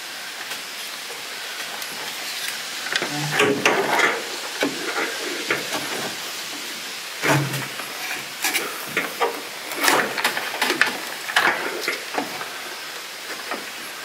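Spade connectors being pushed onto the terminals of a 12-volt rocker-switch panel, with the wires and panel handled against its wooden mount: scattered small clicks and rustles over a steady hiss.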